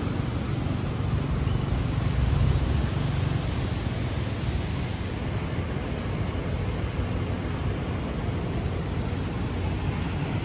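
Wind buffeting the microphone: a steady low rumble under an even hiss, a little stronger in the first few seconds.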